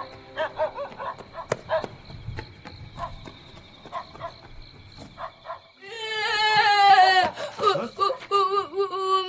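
Scattered dog barks, then about six seconds in a loud, high-pitched wailing cry with a wavering pitch that carries on to the end.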